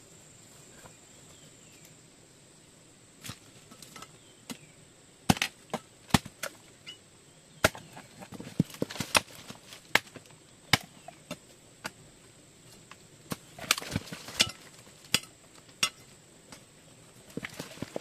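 Irregular sharp chopping strikes, a tool hacking at something, starting about three seconds in and coming in clusters, over a faint steady high insect drone.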